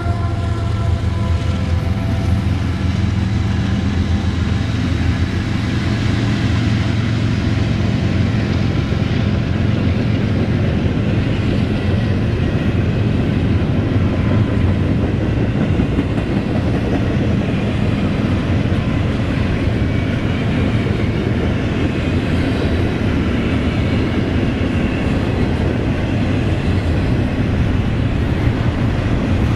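Union Pacific double-stack intermodal freight train passing close: the last of its diesel locomotives, then the stacked container cars, a loud steady rumble of engines and steel wheels on the rails.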